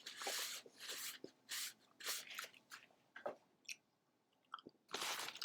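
A person chewing and eating a bacon cheeseburger close to the microphone: soft, irregular mouth and chewing sounds.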